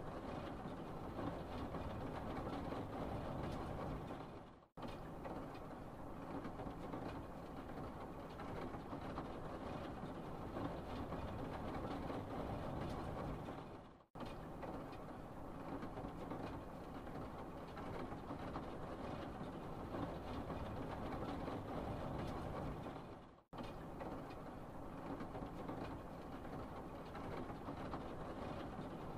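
A steady rumbling noise with no clear tone or rhythm, fading out and cutting back in about every nine seconds, like a looped background track.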